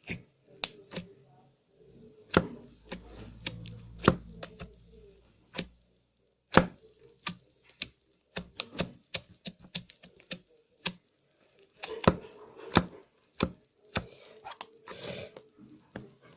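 Slime being squeezed and poked, giving a run of sharp, irregular clicks and pops.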